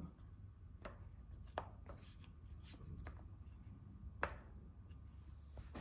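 Fork pricking holes in raw pizza dough rounds in a metal baking tray: a few faint, irregular light taps as the tines strike through the dough, the strongest about four seconds in.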